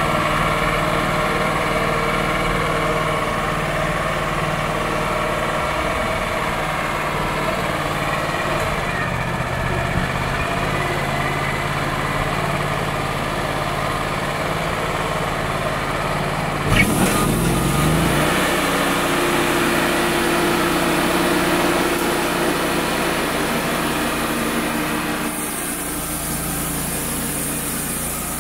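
Wood-Mizer LT35HD portable band sawmill running steadily as its band blade saws along a red oak log. About 17 seconds in there is a click and the machine's note changes.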